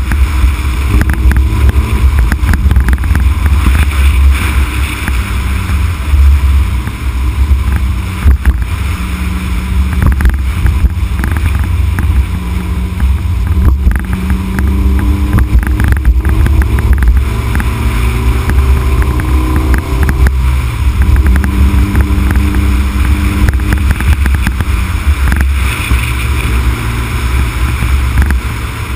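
Honda Civic Type R EK9's 1.6-litre B16B four-cylinder VTEC engine running as the car is driven downhill. Its pitch rises and falls with the revs over a heavy low rumble of wind and road noise.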